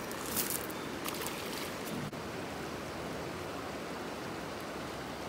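Fast river current running in a steady rush of water, with a couple of brief rustles near the start.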